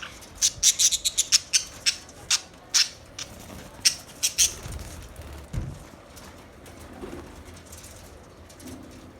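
Budgerigars chirping: a quick run of short, high chirps in the first half, then softer chatter, with a low thump about halfway through.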